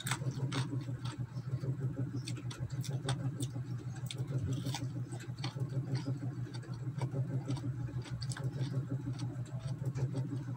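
Close-up chewing of crisp raw cucumber: irregular wet crunches and mouth clicks, over a steady low hum.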